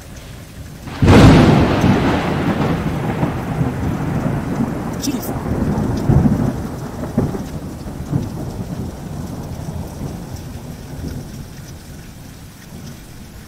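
A sudden loud thunderclap about a second in, then a long rolling rumble of thunder that swells again a few times and slowly fades, over steady rain.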